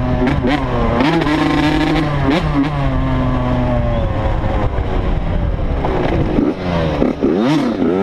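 Dirt bike engine revving as it is ridden over dirt, its pitch rising and falling with the throttle and gear changes. Near the end come several quick rev blips in a row.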